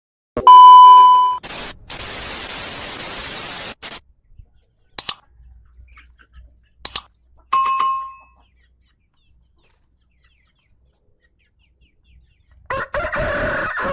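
A run of separate sounds: a loud bell-like ding, about two seconds of steady hiss, two sharp clicks, a second, shorter ding, then after a pause a chicken call near the end.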